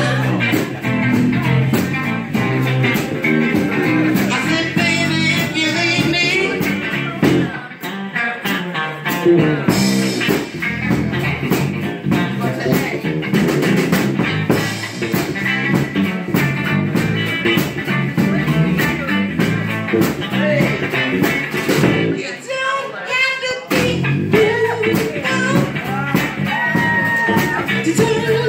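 Live blues: electric guitar played with a singer, as a small band performs.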